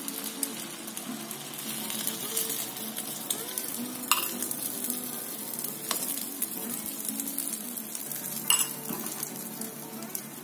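Egg batter sizzling as it is poured into hot oil in a square omelette pan, while a steel spoon scrapes it out of a glass bowl. Three sharp clinks of the spoon against the bowl, the first about four seconds in.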